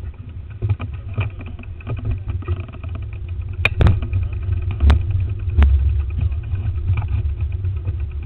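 Wind buffeting the microphone of a handlebar-mounted camera as the bicycle rolls along the road, a steady low rumble with several sharp knocks from bumps and the mount, most of them between about three and a half and six seconds in.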